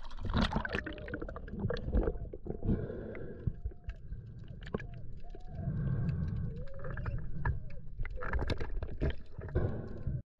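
Muffled underwater sound of a diver entering the water: bubbles rushing and gurgling past the camera, with a low rumble and many scattered clicks and knocks. It cuts off abruptly near the end.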